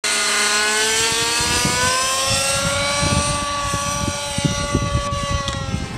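Radio-controlled helicopter's engine running in flight, a steady pitched note that rises slightly and then drops a little near the end, with an irregular low rumble underneath.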